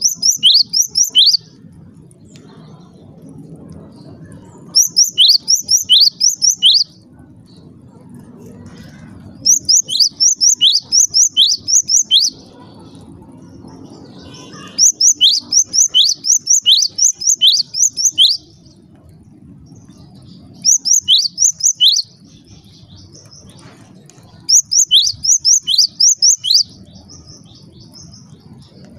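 Cinereous tit (gelatik batu) calling: about six loud bouts of rapid, sharply falling high notes. Each bout holds five to eight notes over one to three seconds, with pauses of a few seconds between bouts, over a faint steady low hum.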